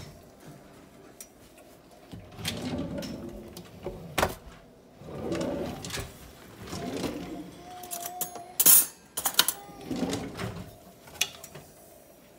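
Metal pots and a ladle being handled on a stovetop: stretches of scraping and stirring, broken by sharp clanks and knocks, the loudest a little before the last few seconds.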